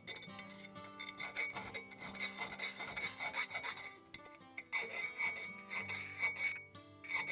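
A hand file rasping back and forth against the steel edge of a double bit axe head's eye in quick strokes, pausing briefly twice. It is filing a small chamfer onto the bottom of the eye so the head will seat tightly on a new handle.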